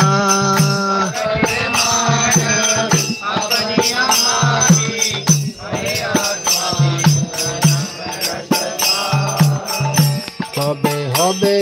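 Devotional kirtan: voices singing a Bengali bhajan in a group, with a mridanga drum and jingling hand cymbals keeping a steady beat.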